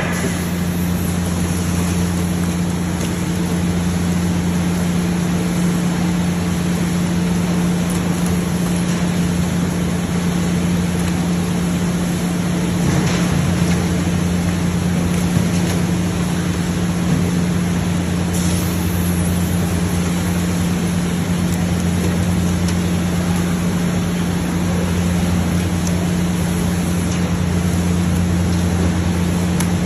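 Steady low hum and rumble of fish-processing plant machinery, with two constant low tones under a broad hiss.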